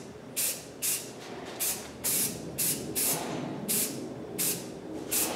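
Aerosol rattle can of primer spraying in a quick series of short hissing bursts, about nine of them, each a fraction of a second long.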